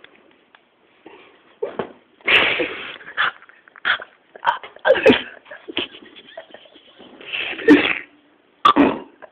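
Stifled, snorting bursts of laughter held back close to the microphone, about a dozen at irregular intervals, loudest in the middle and again near the end, with a few bumps of handling noise.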